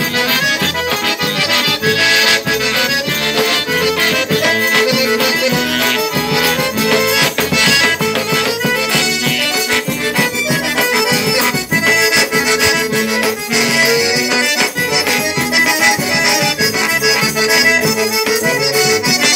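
Accordion (sanfona) playing a traditional Brazilian tune, many notes at once.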